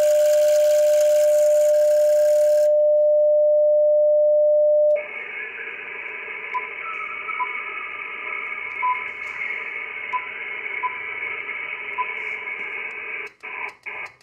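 Icom IC-7300 transceiver sounding a steady single tone while it tunes up, cutting off about five seconds in. After that its speaker gives 40-meter receiver static, with short touchscreen beeps. Near the end the static chops on and off about four times a second as the SWR graph sweep steps across the band.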